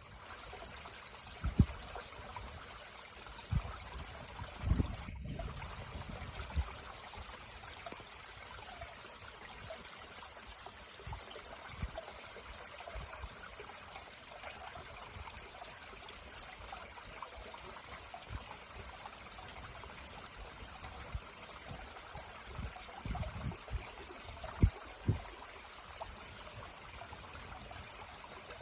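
Steady rush of running water from a waterfall, an even hiss without change, with a few short low thumps a couple of seconds in and again near the end.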